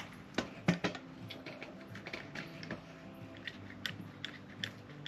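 A DeWalt one-handed quick-grip bar clamp being fitted to a pressure cooker's lid rim: a series of sharp, irregular clicks as its trigger is squeezed and the jaw slides up to cinch on.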